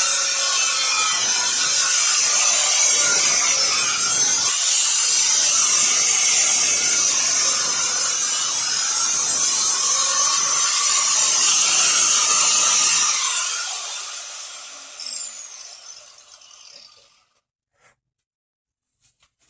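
Angle grinder with a soft sanding pad working over the cut plate, a steady grinding; about 13 seconds in it is switched off and the motor winds down with a falling whine over a few seconds.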